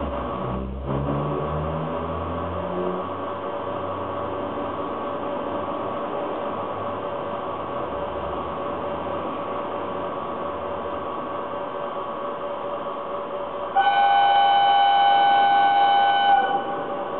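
Steady running noise of N-gauge model trains on a layout, with a low rising motor tone in the first few seconds. About three-quarters of the way through, a loud steady train-horn tone with two close pitches sounds for about three seconds and cuts off.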